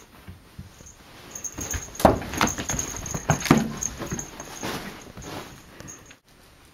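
A kitten scampering and pouncing across futon bedding and tatami: a run of irregular thumps and rustles lasting about four seconds, loudest about two seconds in.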